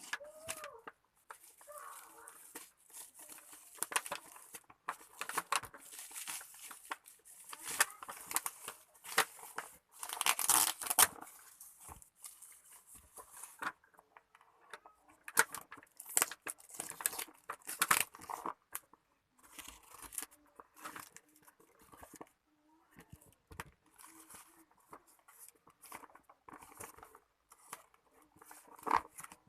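Packaging being torn open and handled: irregular tearing, crinkling and rustling, with louder rips around ten seconds in and again near the middle.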